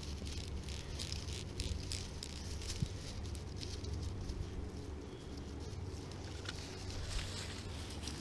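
Seiko SKX007 dive watch's unidirectional 120-click bezel being turned by hand, giving runs of quick, small ratchet clicks that are thickest in the first few seconds.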